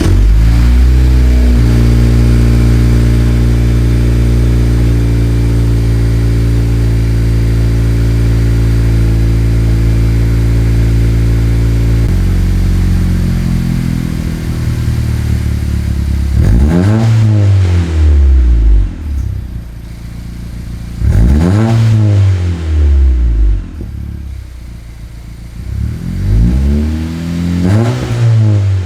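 2022 Honda Civic Si's 1.5-litre turbocharged four-cylinder, fitted with an aftermarket 27WON downpipe, front pipe and cat-back exhaust, idling fast just after starting, with the idle dropping about twelve seconds in. It is then revved three times, each rev rising and falling back to idle.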